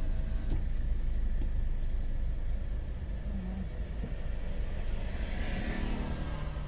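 Steady low rumble of a car's engine and tyres inside the cabin while the car moves slowly, with a few faint clicks. A brief hiss swells and fades about five to six seconds in.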